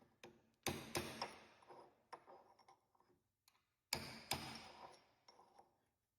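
Hammer tapping a steel punch to drive a worn oil seal out of a dozer winch's input-shaft bore: two quick groups of about three sharp metallic taps each, about a second in and again about four seconds in, with a few lighter ticks between.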